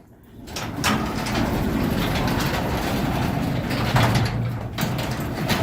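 A 16-foot sectional metal garage door moving along its tracks with a steady rumble and occasional knocks, starting about half a second in. The door is being run to test the aluminium angle reinforcement on its bowed, cracked panels.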